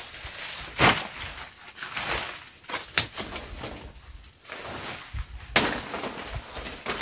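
Machete slashing through undergrowth: three sharp cutting strikes a couple of seconds apart, with rustling of leaves and stems between them.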